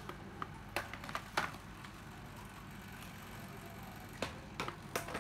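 Handling of cordless power tools: a few scattered clicks and knocks, several close together about a second in and again near the end, over a low steady hum.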